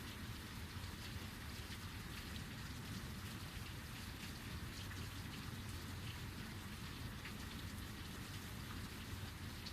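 Heavy rain falling steadily, a dense even hiss with individual drop hits scattered through it.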